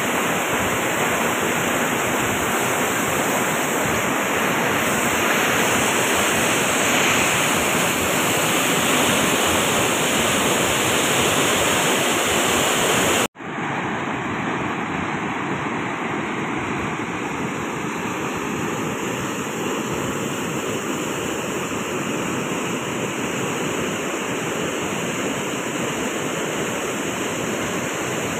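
Muddy floodwater pouring over a dam spillway, a steady rushing noise. About halfway through it cuts out for an instant, then goes on a little quieter.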